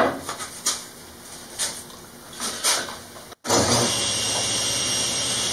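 A few light knocks of a wooden board being handled. About three and a half seconds in, a Grizzly G1023SL 10-inch table saw cuts in suddenly and runs steadily.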